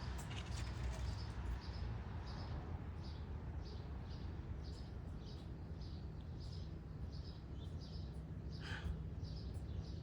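Squirrels making angry alarm calls: a steady run of short high chirps, about two a second, with one louder, fuller call near the end, over a low background hum.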